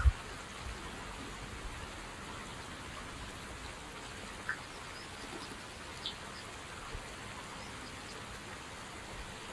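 Steady, even outdoor background hiss with no clear calls. It has a few faint, short chirps or ticks about four and a half and six seconds in, and a soft low thump a little later.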